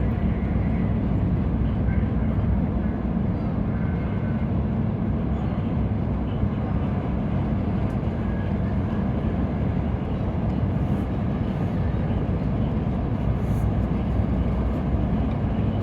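Steady low rumble of a Sado Kisen ferry under way, its engines droning with a broad wash of noise, as the ship makes a wide turn leaving port.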